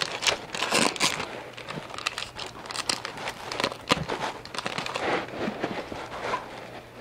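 Foil wrapper of a Pokémon card booster pack being torn open and crumpled in the hands: irregular crinkling and crackling rustles.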